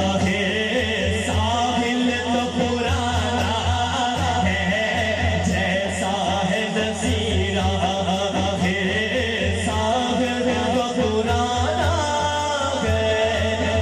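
A man singing a naat, an Urdu devotional poem in praise of the Prophet, with long held, bending melodic lines into a microphone, amplified through a PA system, over a low pulsing hum.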